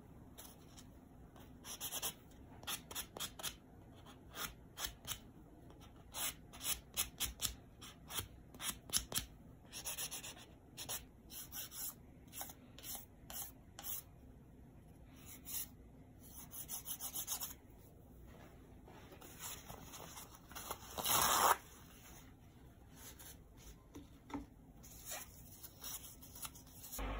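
Fingernails filed with a hand-held nail file: short, scratchy strokes in quick runs, with one longer, louder stroke late on.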